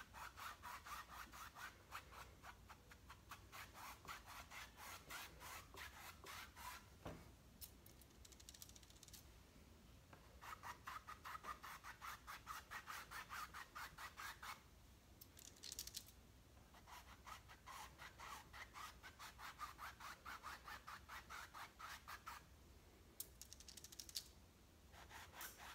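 Faint, quick back-and-forth strokes of a nearly dry paintbrush scrubbing over a canvas, several strokes a second, in runs of a few seconds with short pauses between.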